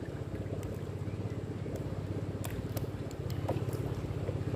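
Small boat engine running steadily with a fast, even pulsing, getting a little louder after about three seconds, with a few sharp clicks over it.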